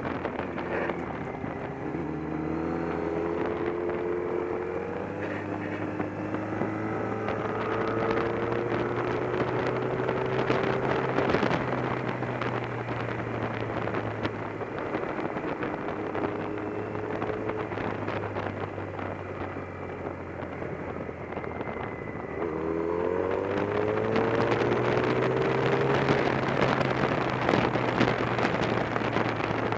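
Motorcycle engine accelerating and easing off several times, its pitch climbing in repeated runs, with steady wind noise on the microphone.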